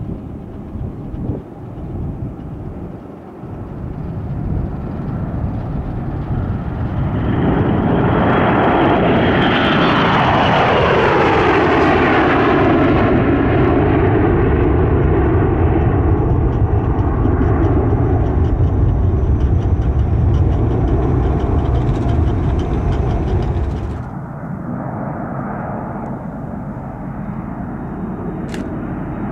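A Gulfstream G650ER business jet's twin Rolls-Royce BR725 turbofans at takeoff power, growing loud as it rolls and lifts off past, with a whine that falls in pitch as it goes by. Near the end it cuts abruptly to the quieter, steady jet engine sound of a Bombardier Challenger 300 on the runway.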